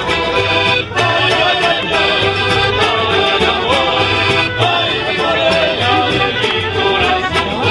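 A mariachi-style street band playing Latin American music: an accordion carrying the tune over strummed guitars and a pulsing bass beat.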